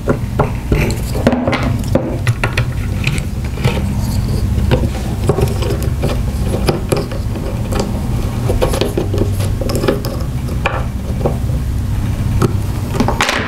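A multi-tool's flathead working blind plugs into an encoder shield housing: repeated small clicks, knocks and scrapes of the tool and parts being handled, over a steady low hum.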